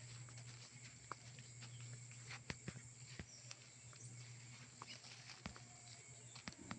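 Quiet countryside ambience: a steady low hum and a faint steady high hiss, with scattered faint clicks and knocks throughout.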